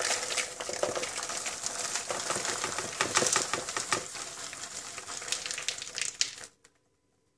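Popped popcorn pouring out of a plastic tray into a bowl: a dense rattle and patter of many light kernels falling and tumbling, with a couple of louder spurts as the tray tips further. It stops abruptly about six and a half seconds in.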